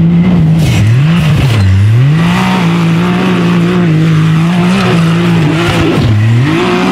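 Race buggy's engine revving hard under full throttle on a steep dirt climb. Its pitch dips sharply and recovers about three times as the throttle is lifted and reapplied.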